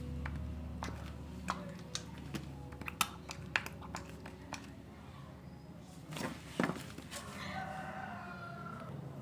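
Scattered light clicks and knocks, with a pitched animal call about a second and a half long near the end, its pitch falling slightly.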